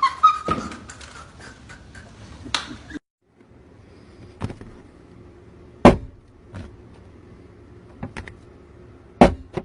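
Single gunshots at irregular intervals, the loudest about six seconds in and near the end, with a sudden short dropout about three seconds in.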